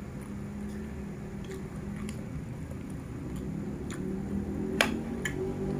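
A metal spoon scraping and clicking against a plate as food is scooped up: a handful of light, separate clicks, the loudest one a little before the end, over a low steady hum.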